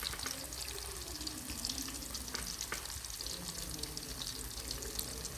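Garlic-breaded chicken butts frying in a shallow layer of cooking oil in a pan, with a steady sizzle and dense crackling.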